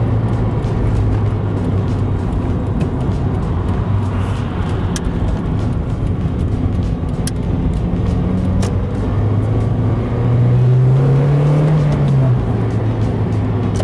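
Car engine and road noise heard from inside the cabin while driving, with a steady engine hum. Near the end the engine note rises for about two seconds, then drops away suddenly.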